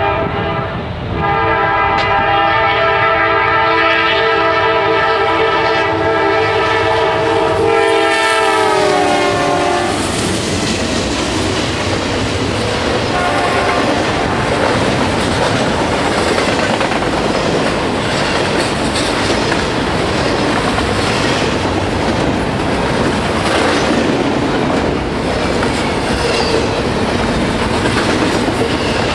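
Diesel freight locomotive's multi-chime air horn sounding a long chord, broken briefly about a second in, its pitch sliding down as it passes about eight to nine seconds in. Then the steady running noise of double-stack intermodal container cars rolling past, with the clickety-clack of wheels over the rail joints.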